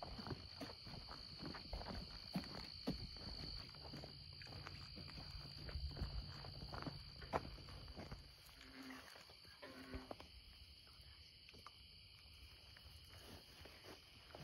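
Footsteps rustling through grass and brush along a pond bank over a steady high chorus of night insects. A little past halfway, two short low calls sound a second apart, a bullfrog calling.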